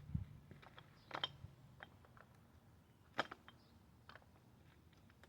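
Scattered light knocks and clicks of metal being handled as a freshly cast brass piece is worked loose from its mold: a dull thump at the start, a cluster of clicks about a second in, and the sharpest click about three seconds in.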